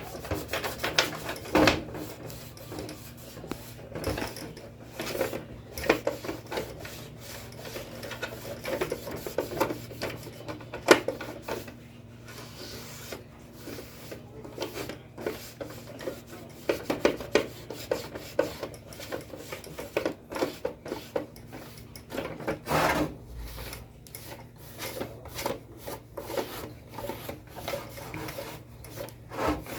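Irregular rubbing and scraping strokes with small knocks as the casing of a dusty Sony CFS-1058S radio cassette recorder is worked on by hand for cleaning, over a faint steady low hum.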